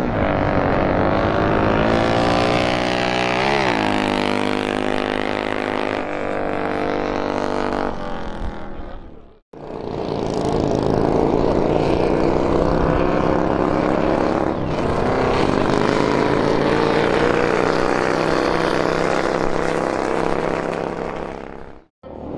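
Pre-war motorcycle engines running hard on a beach drag strip, their note rising and falling as they race. The sound drops out briefly about nine seconds in, then the engines run on.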